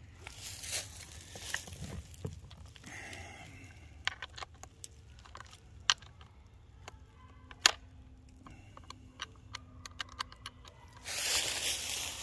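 Scattered sharp clicks and knocks from a Neotec 2500 top-handle chainsaw being handled. About eleven seconds in, footsteps start crunching through dry leaves.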